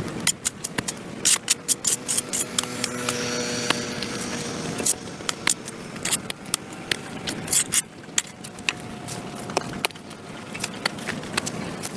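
A hand tool scraping and clinking against a concrete sidewalk as caked dirt and grass are cleared, in quick, irregular strikes. A faint steady hum sits under it between about two and five seconds in.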